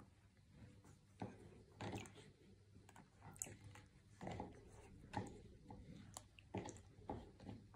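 Faint, irregular clicks and light taps, handling noise close to the microphone.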